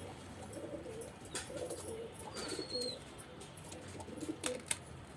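Domestic pigeons cooing, low warbling calls repeated throughout, with a brief high whistle about halfway and a few sharp clicks.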